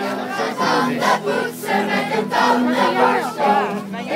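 A large group of children singing together loudly.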